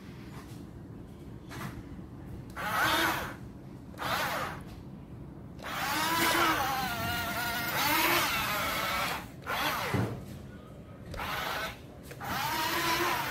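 Small electric drive motor and gearbox of a Huina RC dump truck whining in about six bursts of throttle, the pitch rising and falling as the truck speeds up and slows. The longest burst runs from about five and a half to nine seconds in.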